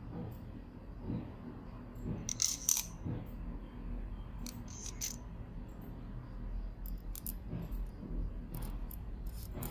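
Small clicks and clinks of a Mini Maglite flashlight's aluminium barrel and small parts being handled. They come in a few scattered clusters over a low steady hum.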